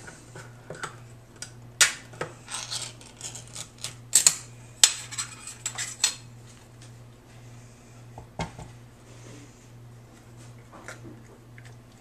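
Small metal can of cat food being opened by its pull-tab: a run of sharp clicks and metallic scrapes over a few seconds as the lid is peeled back, then quieter handling and a single thump about eight seconds in.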